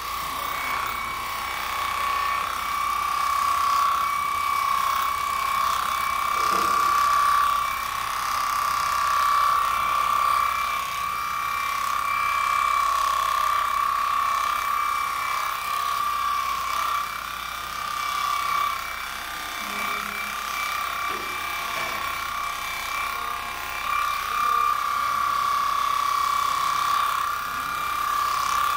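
Electric horse clippers running with a steady high-pitched hum, the level rising and dipping slightly as the blades cut through the horse's coat.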